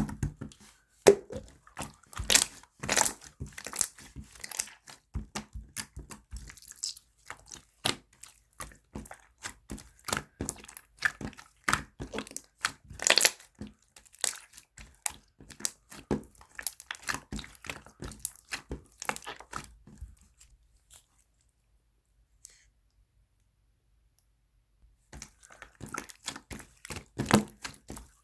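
Red jelly slime being worked by hand, giving a quick run of sticky crackling and popping clicks. The sounds stop for about five seconds two-thirds of the way through, then start again near the end.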